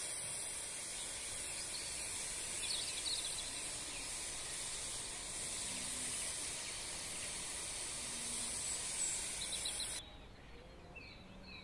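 Countryside ambience: an even, steady hiss with a few faint bird chirps. About ten seconds in the hiss cuts off suddenly, leaving only the faint birdsong.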